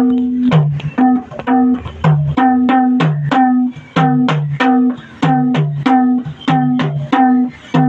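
Madal, the Nepali double-headed hand drum, played in a steady repeating rhythm of about three strokes a second, with ringing higher-pitched strokes alternating with deep bass strokes.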